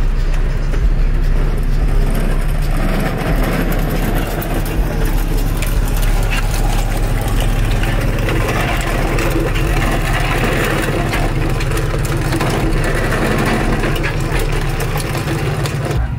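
A vehicle engine idling steadily, with background chatter.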